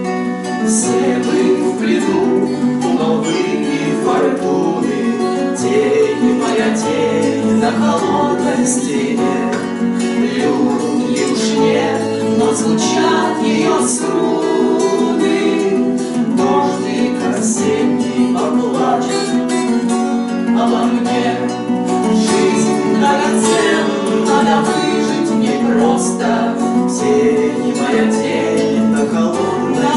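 Several acoustic guitars strumming a chordal accompaniment while the song's verses are sung, live.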